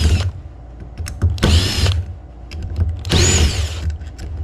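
Power drill/driver run in two short bursts, its motor whining up and down in pitch as it backs out small screws from a carburetor.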